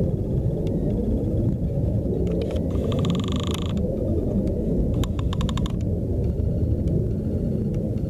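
Wind buffeting the microphone in open country, a steady low rumble. About three seconds in there is a short burst of rapid clicking, and a second run of sharp clicks follows a couple of seconds later.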